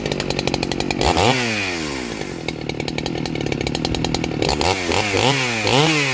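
Two-stroke chainsaw firing up on a pull of the starter cord and running. The throttle is opened once about a second in, the engine revving up and falling back to idle, then blipped in several short revs near the end.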